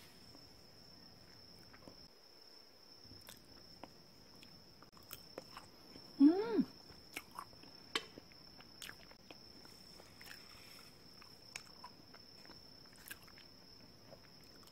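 Soft clicks of a metal fork on a ceramic plate and quiet chewing of soufflé pancake. About six seconds in there is a brief hummed 'mm' that rises and falls in pitch. A faint steady high whine runs underneath.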